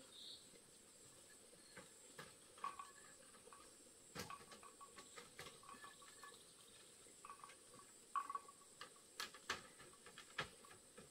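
Quiet background with scattered faint clicks, light knocks and short creaks at irregular intervals, over a steady high hiss.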